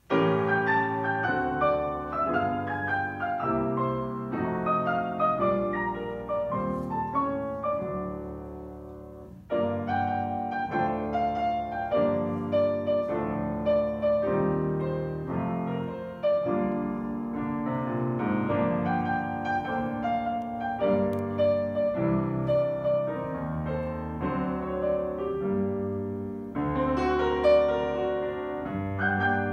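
Grand piano played four hands as a duet, starting with a sudden entry out of silence. The playing tapers off about eight seconds in, comes back loud a second or so later, and swells again near the end.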